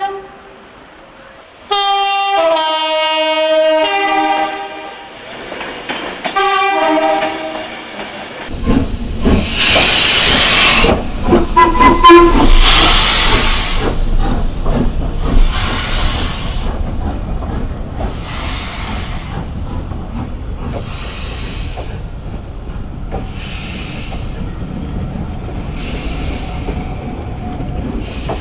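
A train's two-tone horn sounds twice, each time a higher note dropping to a lower one, the first long and the second short. Then a train passes at speed, its wheels clattering over the rail joints in regular surges, loudest in the first few seconds and easing off.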